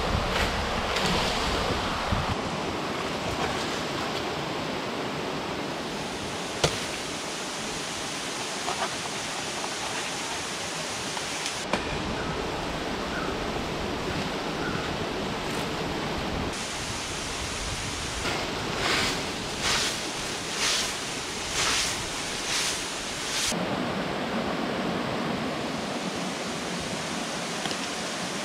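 Steady rushing of a river's running water. A sharp click comes about a third of the way in, and a run of about seven short strokes in quick succession comes a little after two thirds of the way through.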